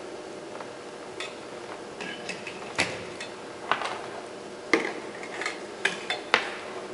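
Scattered light clicks and knocks from power cables and plugs being handled on a desk, about seven separate taps with a cluster of three near the end.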